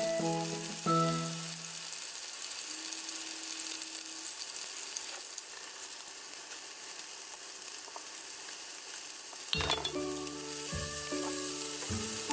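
Oil sizzling steadily in frying pans where shrimp have been shallow-fried and chicken thigh pieces are browning. Background music with short plucked notes plays at the start and comes back about nine and a half seconds in.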